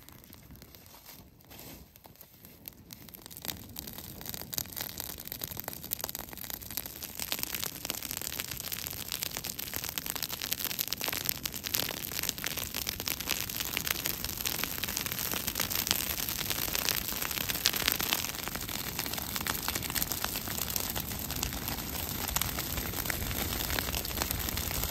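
Dry grass and leaf-litter fire crackling with dense, rapid pops, quiet at first and growing louder over the first several seconds as the flames spread, then holding steady.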